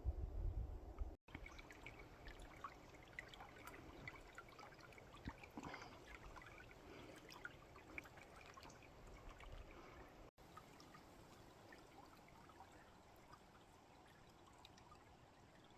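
Faint trickling and running of water, with scattered small clicks and splashes. A brief low rumble comes at the very start.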